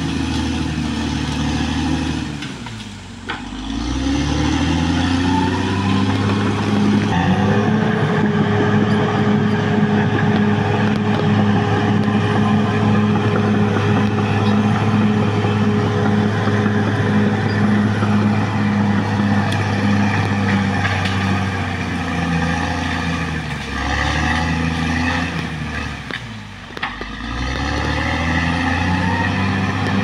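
Caterpillar D6R XL bulldozer's diesel engine working steadily. Its note drops sharply and climbs back twice, about three seconds in and again near the end, with a rising whine each time it picks back up. A steady whine runs through the middle stretch.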